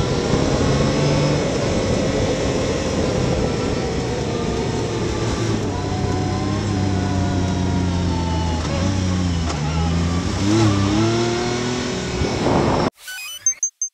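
Yamaha YXZ1000R side-by-side's three-cylinder engine running on a wet gravel trail with tyre and gravel noise, as the machine slows. The revs dip and pick up again a few times near the end. It cuts off abruptly, and a few short electronic beeps follow.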